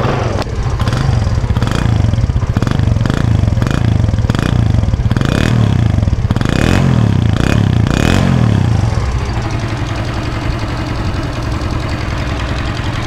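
Hero RF70's 70cc four-stroke single-cylinder engine running smoothly, blipped up and down several times, then settling to a steady idle about nine seconds in. A light tappet tick is left from setting the valve clearances slightly loose on the newly overhauled engine.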